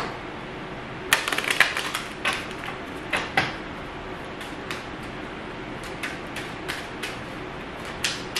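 Tarot cards being shuffled by hand: a quick flurry of card clicks about a second in, then separate clicks and taps that grow fainter.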